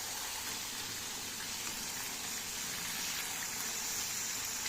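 Chicken and potato curry sizzling in a pot: a steady, even hiss.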